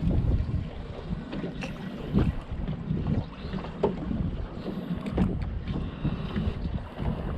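Wind buffeting the microphone on an open fishing boat, a rough uneven rumble, with water slapping the hull and a few short knocks.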